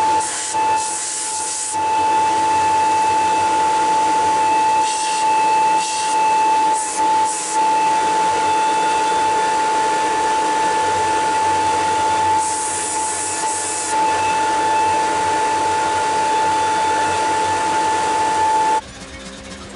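Power grinder running with a steady high motor whine, with short bursts of harsher hiss several times as steel is pressed to it. The machine sound cuts off suddenly near the end.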